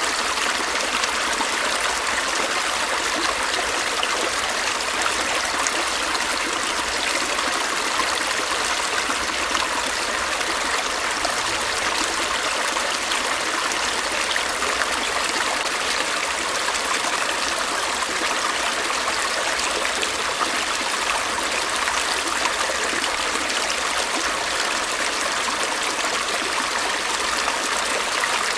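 A stream's water running and trickling in a steady, unbroken rush.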